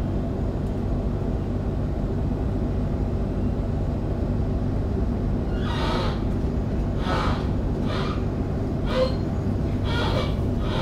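Steady low rumble of an electric suburban train running along the line, heard inside the carriage. From about six seconds in, a string of short hissy sounds comes roughly once a second over the rumble.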